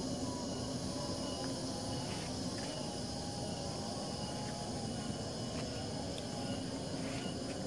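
Insects chirring steadily, with a faint even background noise beneath.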